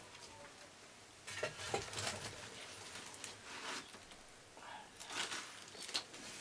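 A flat metal scoop scraping the bottom of a metal pan as burning charcoal is shovelled up, with the embers clattering as they are tipped into a clay pit oven. There are a few short scrapes and clatters, the strongest about a second and a half in.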